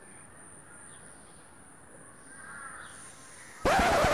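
Faint outdoor background, then near the end a single loud, harsh caw-like bird call lasting well under a second.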